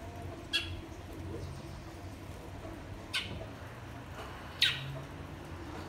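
Caged great-billed seed-finch (bicudo, twa-twa) giving three short, sharp call notes spread over a few seconds, each a quick downward sweep.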